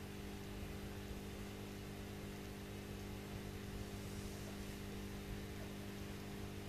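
Aquarium pump humming steadily, with a faint even hiss of air bubbling through the tank.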